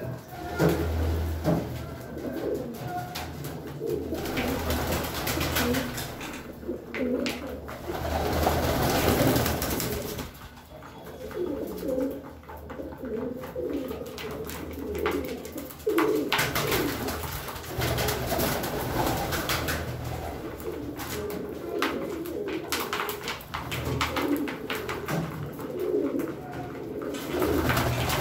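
Domestic pigeons cooing over and over, several birds at once, with scattered clicks and brief rustling noise in between.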